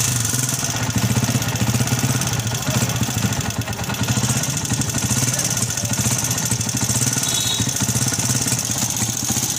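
Honda CG125's air-cooled single-cylinder four-stroke engine idling steadily, with a heavy tick-tick noise. The engine is blowing smoke from its breather pipe; stripped down, it shows stuck piston rings and a scored cylinder sleeve.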